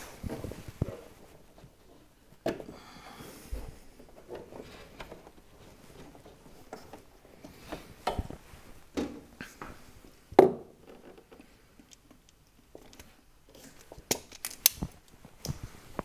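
Hands working on car wiring with small hand tools: scattered clicks, snips and the rustle of wires being handled, the loudest a sharp snap about ten seconds in, with a few quick clicks near the end.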